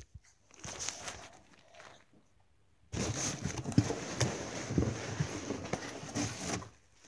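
Muffled rustling and soft knocks of handling noise close to a phone lying face down, as things are moved about on it or beside it. It drops out completely for under a second about two seconds in, then comes back as steadier rustling with dull thumps.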